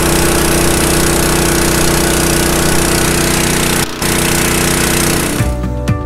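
DMC SCU100P gasoline-engine-driven high-pressure scuba compressor running steadily under load while it fills an air bottle, with a brief dropout about four seconds in. The machine cuts off suddenly about five and a half seconds in and gives way to background music.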